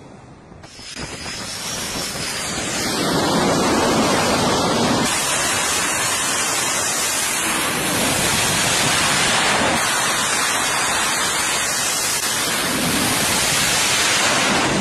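Twin jet engines of an F/A-18 Hornet-family fighter at full thrust for a steam-catapult launch. A loud, steady rushing noise builds over the first few seconds, holds, and cuts off sharply at the end.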